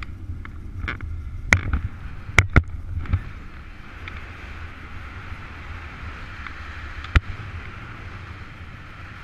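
Airflow rushing over a paraglider pilot's camera microphone in flight, a steady rumble with hiss. Sharp knocks stand out over it: several in the first three seconds and one more about seven seconds in.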